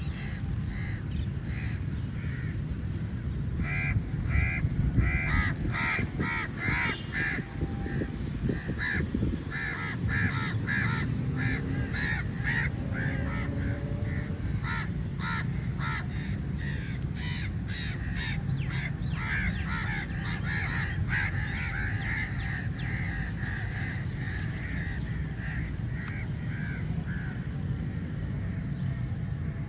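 A large flock of crows cawing, many short calls overlapping in quick succession, with a steady low rumble underneath.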